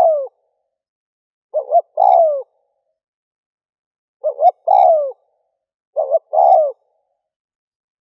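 Spotted dove (cu gáy) cooing, a decoy bird's call repeated about every two seconds. Each phrase is two short coos followed by a longer coo that falls in pitch, heard three times in full.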